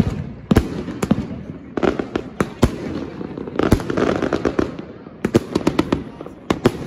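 Triplex XB4100 "Air Force One" firework cake firing: its shots burst overhead as sharp bangs, irregularly spaced at first, then in a quick run of bangs a little past five seconds in, with noise between them.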